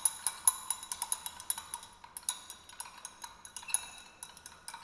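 Glass stirring rod clinking against the inside of a glass beaker as a liquid is stirred vigorously: quick, irregular clinks, several a second, each with a short ringing tone.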